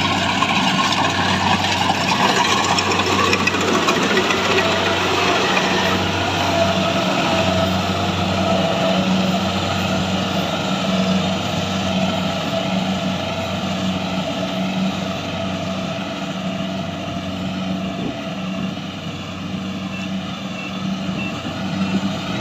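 Engine and mechanism of a rice harvesting machine running steadily: a steady low hum under a busy mechanical rush, easing off a little in the second half.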